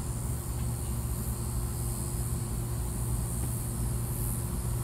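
Steady low mechanical hum with a faint high hiss underneath, unchanging throughout.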